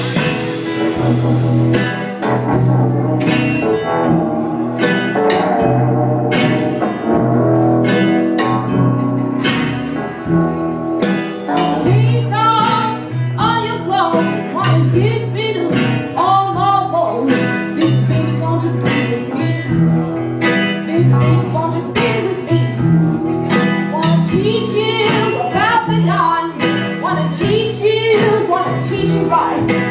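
Live band music: an electric guitar lead with bending notes over an upright double bass and drums.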